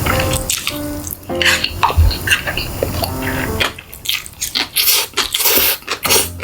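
Short plinking notes at changing pitches, like light background music or drips, then crisp crunching bites of close-miked eating in the second half.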